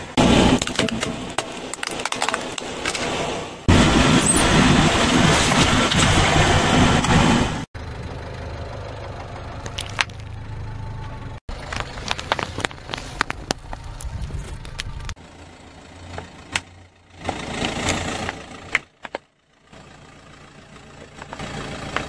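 A car tyre rolling slowly over household items and crushing them, one after another: a cardboard box, plastic cups and a plastic bottle, with crunching and sharp cracks. The car's engine runs low underneath.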